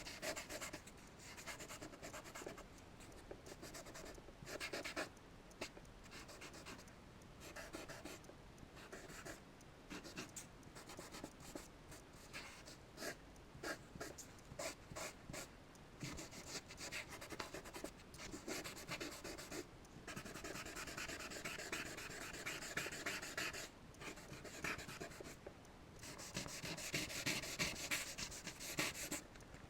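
Charcoal scratching and rubbing on paper while drawing and blending. It comes as many short scratchy strokes with brief pauses, then longer continuous strokes, loudest near the end.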